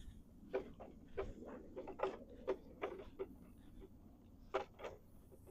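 Wooden Langstroth beehive box being handled and set in place: a dozen or so light, irregular knocks and taps of wood on wood.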